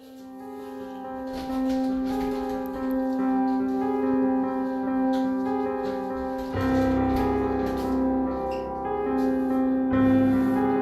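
Background keyboard music of held piano chords fading in over the first couple of seconds. The chord changes, with a deeper bass, about six and a half seconds in and again near the end.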